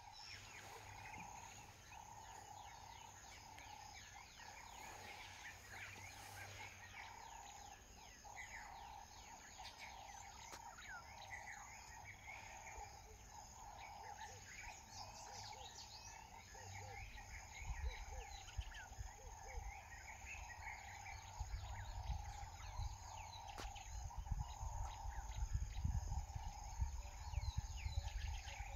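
Bush ambience: a steady insect chorus with scattered short bird chirps. About two-thirds of the way through, a gusty low rumble comes in and grows louder.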